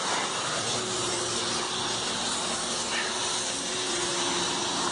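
Steady rushing hiss of a fast-flowing river current, with a faint steady hum underneath.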